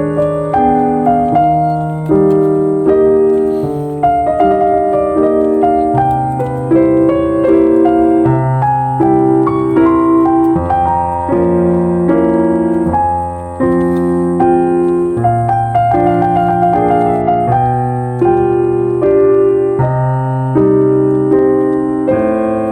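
Slow, gentle piano music: sustained chords and a simple melody, each note struck and left to ring and fade.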